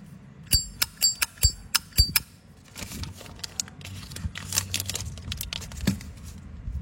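Brass flip-top lighter worked by hand: about eight sharp metal clicks with a bright ringing tone in the first two seconds as the lid is flicked open and snapped shut, then softer scattered clicks and rasps.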